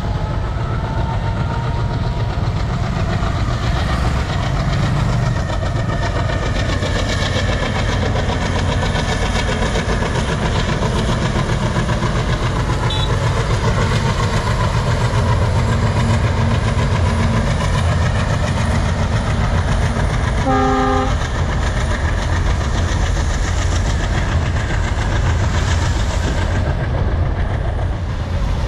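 Diesel-hauled freight train passing over a bridge: a steady loud rumble of the locomotive and rolling wagons, with a short horn blast about two-thirds of the way through.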